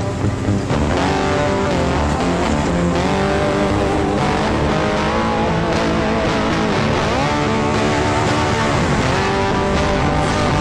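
Side-by-side UTV engine running on the trail, its pitch dipping and climbing back several times as the throttle comes off and on, mixed with background music with guitar.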